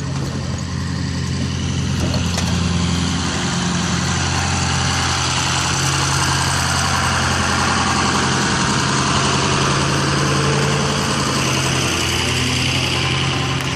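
Fire apparatus engine running steadily at a constant speed, with a steady rushing hiss of water flowing from the hoses over it.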